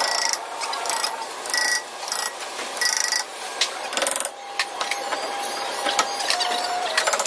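Irregular metallic tapping, clinking and knocking as a screwdriver is worked through a hole cut in a rear disc brake rotor to tap the drum-in-hat parking brake shoes inward, freeing a rotor rusted onto the hub. Some of the strikes ring briefly.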